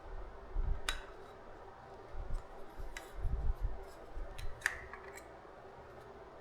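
Handling noise from unboxing a cine lens: a few sharp clicks and light taps, with soft low bumps in between.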